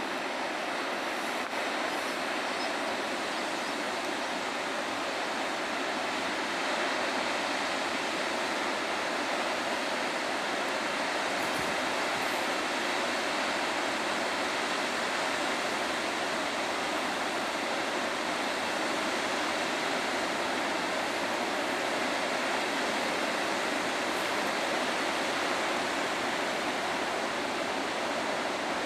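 Steady wash of sea surf on the shore, a continuous even rush with no breaks.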